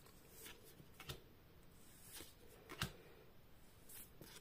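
Faint ticks and rustles of Pokémon trading cards being slid one off another as a hand-held pack is flipped through, about five soft clicks spread out, the loudest about three seconds in.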